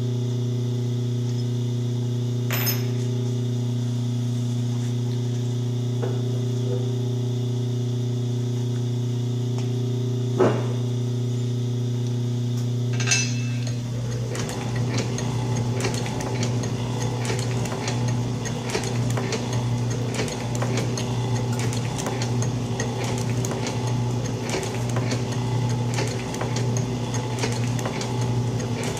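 Old Atlas metal shaper: a steady electric hum with a few sharp metallic clinks as the work clamps are changed. About halfway through the shaper starts stroking, a rhythmic mechanical clatter of the ram and feed as the tool takes cuts across the cast engine box bed.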